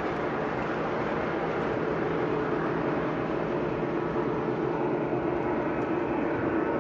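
Lionel O gauge freight train rolling past on three-rail track: a steady rumble of metal wheels on the track, with a faint held tone underneath.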